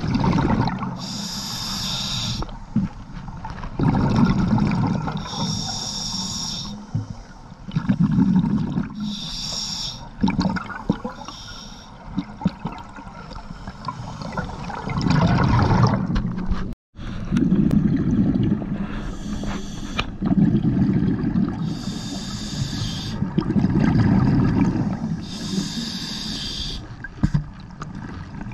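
Scuba diver breathing through a regulator underwater: a hissing inhale through the demand valve, then a low bubbling exhale, about six breaths at roughly one every four seconds. The sound cuts out for a moment about two-thirds of the way through.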